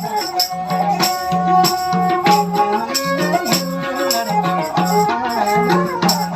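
Nepali folk music: a sarangi plays a wavering, sliding melody over a steady, regular drum beat and rattling percussion.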